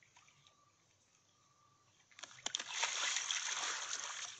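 A golden retriever leaping off the bow of an inflatable kayak into a lake. A big splash comes suddenly about two seconds in, followed by continued splashing and sloshing water as it hits the water and starts to swim.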